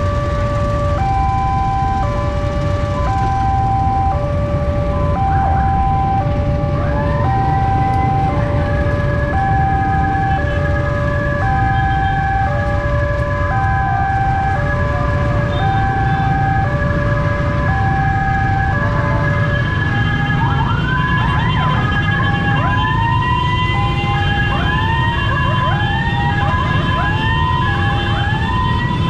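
Railway level-crossing alarm sounding a steady alternating two-note chime, joined about a quarter of the way in by an ambulance siren. In the second half the siren's rising whoops repeat about once a second over the crossing alarm. Idling motorbike and truck engines run underneath.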